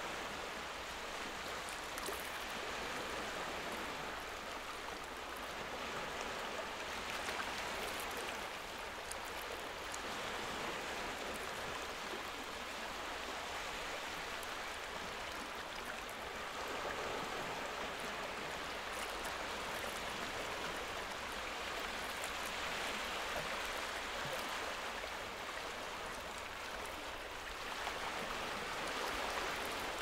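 Steady rain falling: an even rushing hiss with a few faint drop ticks.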